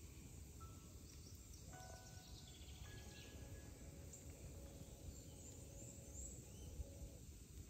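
Quiet outdoor ambience: a steady low rumble with faint, distant bird chirps now and then.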